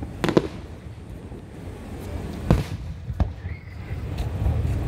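Aerial firework shells bursting overhead: a quick double bang just after the start, a loud bang about two and a half seconds in and a smaller one shortly after, over a steady low rumble.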